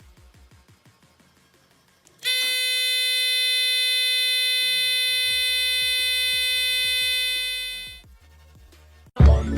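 Homemade battery-powered doorbell buzzer sounding one steady buzzing tone for about six seconds, starting about two seconds in and then dying away. Faint background music plays before it, and loud music comes in near the end.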